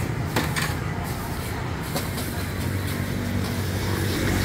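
Steady low rumble of a high-pressure gas wok burner under a hot wok, with a few sharp clinks of a metal spatula against the wok.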